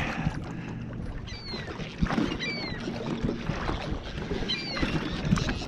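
Birds calling with short falling cries, three times, over a steady wash of water and boat noise.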